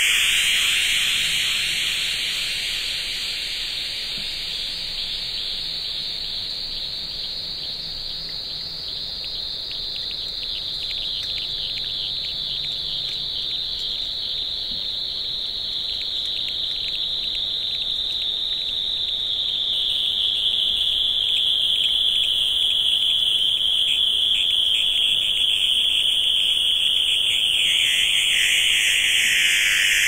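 Plasmaphone: a plasma globe played as an instrument by fingers moving on the glass, giving a shrill, dense, cicada-like electric buzzing drone. It shifts slowly; a thin higher hiss joins about two-thirds through, and near the end the buzz spreads lower in pitch.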